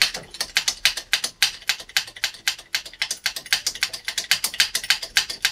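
Air-over-hydraulic ram's air-driven pump chattering with rapid, even clicks as it pumps the ram up under pressure, testing a freshly replaced bottom seal that had let the ram retract.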